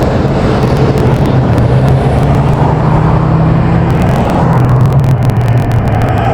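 A motor vehicle's engine running close by: a steady low hum that drifts slightly in pitch, with light clicks over it.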